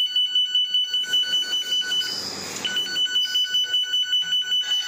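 Electronic end-of-tape alarm on a tube-taping machine, beeping rapidly at one high pitch: the masking-tape roll has run out. About two seconds in, the beeping stops for half a second and a short hiss takes its place, then the beeping resumes.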